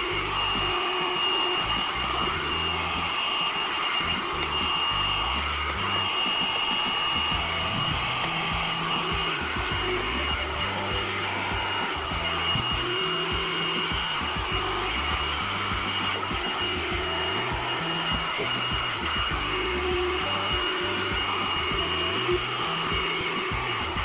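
Handheld hair dryer running steadily with a constant high motor whine, blowing hot air into a frosted RV freezer to melt the ice.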